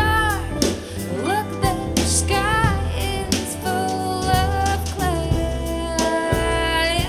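A song with a sung vocal line over bass and drums, played back through in-ear monitors for a sound comparison.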